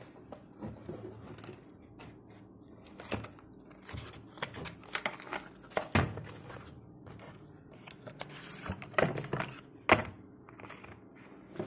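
Cardboard earphone box being opened and its inner card tray handled: papery rustling with scattered clicks and taps, the sharpest about six and ten seconds in.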